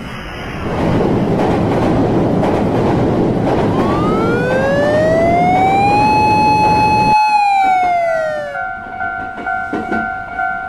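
Train running noise with a long horn blast that rises in pitch, holds, then falls. The running noise cuts off abruptly about seven seconds in, leaving a level-crossing alarm ringing in quick repeated dings, about two to three a second.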